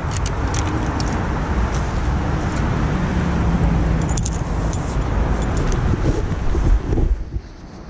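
Light metallic clinking and jingling from a spinner lure and tackle as a hooked smallmouth bass is swung up the bank on the line, over a steady low rumble that drops away near the end.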